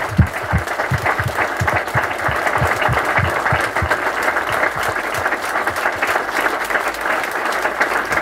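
Audience applauding, many hands clapping steadily, with a few deeper, heavier claps close by during the first half.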